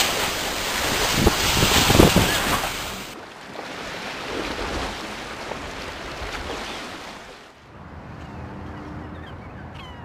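Wind buffeting the microphone over a rough sea, loud at first, then cutting abruptly about three seconds in to a quieter stretch of wind and water noise.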